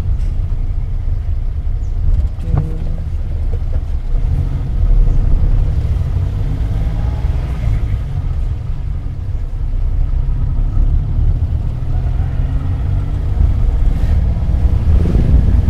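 Cabin sound of a 1984 Daihatsu Hijet 1000 microvan under way: its three-cylinder engine running with a steady low rumble, mixed with road noise. There are a couple of brief clicks, one about two and a half seconds in and one near the end.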